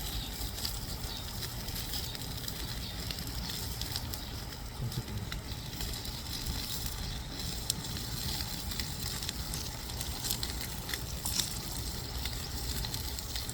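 Wood bonfire crackling, with scattered sharp pops over a steady hiss.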